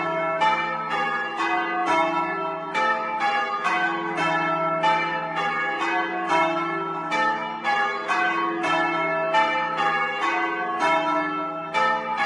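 A ring of four heavy church bells, hung for change ringing, being rung full circle in the belfry. The strikes come in a steady, even rhythm of about three a second, each note ringing on under the next.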